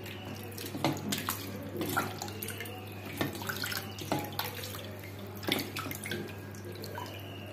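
Hands splashing and rubbing in water in a stainless steel bowl, rinsing off a dried papaya face pack: irregular splashes and drips.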